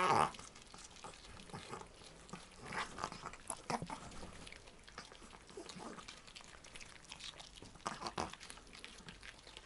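Chihuahuas chewing pieces of sweet bell pepper, with irregular short crunches.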